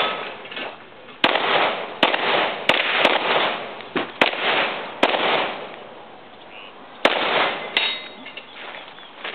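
Semi-automatic pistol fired in a rapid string of shots, several in quick pairs, each with a ringing echo trailing after it, with a gap of about two seconds in the middle before the firing resumes.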